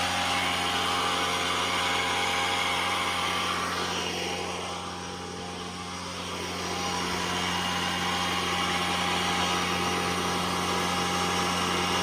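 Refrigerant recovery machine running steadily, its compressor drawing refrigerant out of the old air-conditioning system: a constant motor hum with a hiss over it, dipping in loudness briefly about halfway through.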